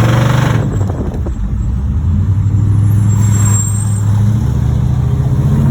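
V8 engine of a 1986 Chevrolet Monte Carlo SS running as the car is driven, its note shifting with the throttle. The engine has a bottom-end rod knock, the sign of a worn connecting-rod bearing.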